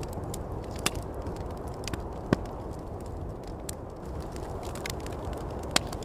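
Wood fire crackling and popping, with three louder pops: about a second in, past two seconds, and near the end. Under it, a steady low rush of wind.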